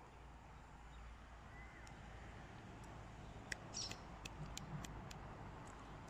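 Faint outdoor street ambience: a low steady rumble, with a few short high chirps or clicks in the second half.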